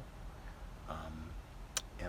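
A pause in a man's talk: faint low background rumble, a brief murmured voice sound about a second in, and a single sharp click near the end.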